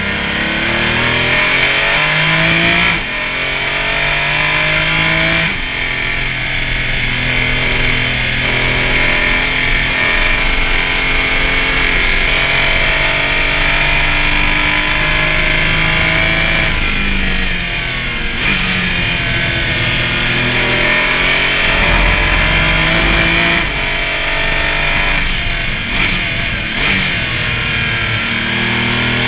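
Porsche Cayman race car's engine pulling hard through the gears, its pitch climbing and then dropping at each gear change, several times, over steady road and wind noise.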